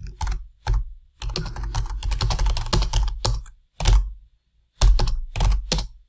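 Typing on a computer keyboard: a few separate keystrokes, then a fast continuous run of keys about a second in, followed by a few more strokes and a short burst near the end.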